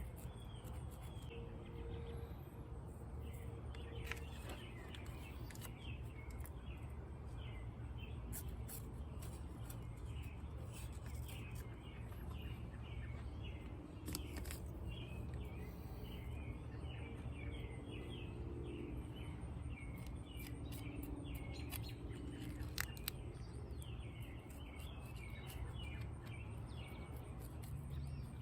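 Small birds chirping repeatedly in the background over a steady low hum of outdoor ambience, with a few faint clicks.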